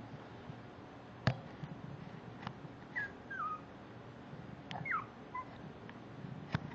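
Maltese puppies whimpering: a few short, high whines, some sliding downward, about halfway through. There are also several sharp clicks or taps.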